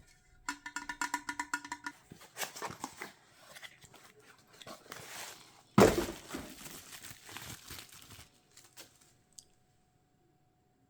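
Packaging being unwrapped: crinkling and rustling, with one loud tearing rip about six seconds in, then a few light clicks before it goes quiet. A short, rapid pitched rattle sounds near the start.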